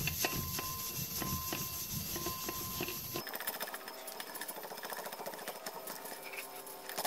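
Abrasive scouring pad scrubbing the steel clutch hub of a Cat 933C steering clutch in quick back-and-forth strokes, roughening the surface where the clutch material rides so the new clutch plates can wear in. The strokes grow quieter after about three seconds.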